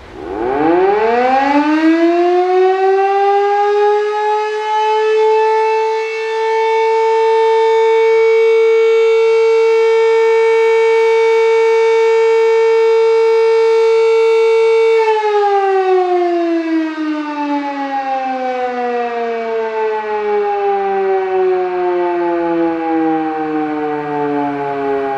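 Elektror S3a electric motor siren on a test run. It starts up and winds up quickly to a steady tone, holds it for about ten seconds, then is switched off and winds down with a slowly falling pitch.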